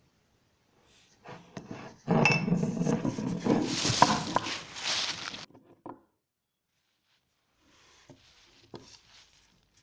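Dry fallen leaves crunching and crackling loudly as a body drops and rolls onto a thick layer of them, starting about two seconds in and lasting some three seconds. A few faint rustling steps in the leaves near the end.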